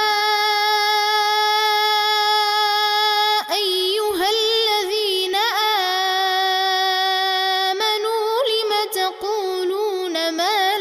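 Melodic Quran recitation (tajweed) by a single male reciter. He holds the opening 'yaa' of 'yaa ayyuhal-ladhina amanu' on one steady high note for about three and a half seconds, then carries the verse on in winding, ornamented phrases.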